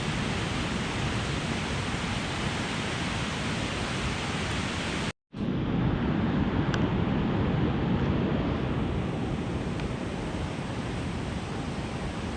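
Steady rush of a river and waterfall in spring runoff. It drops out for an instant about five seconds in, then carries on.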